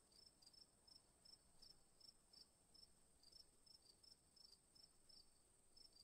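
Near silence, with only a very faint high chirping, about four chirps a second, over a faint steady high tone.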